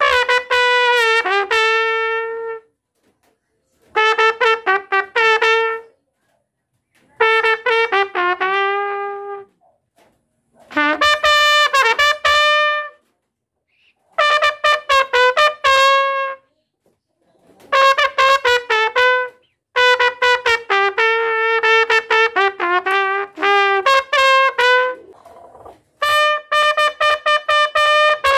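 Solo trumpet playing a slow melody unaccompanied, in about eight separate phrases with short breath pauses of silence between them.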